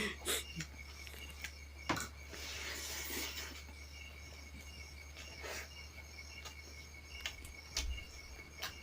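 Quiet background: a steady low hum with a faint, high, pulsing insect-like chirring, and a few soft scattered clicks.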